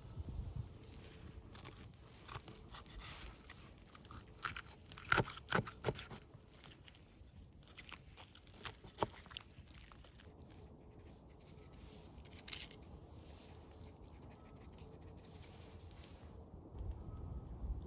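A person eating: irregular crunching and chewing, heaviest in the first six seconds, with a few more crunches later.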